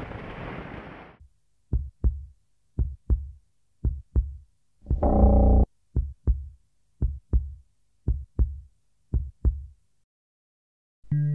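A heartbeat: paired low thuds, lub-dub, about once a second, with one longer low tone of about half a second midway. A rumbling noise stops about a second in.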